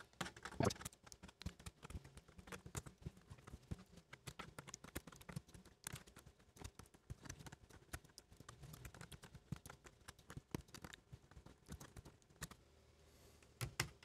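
Rapid, irregular faint clicks and plastic snaps of Gateron blue mechanical key switches being pulled out of a keyboard plate with a switch puller.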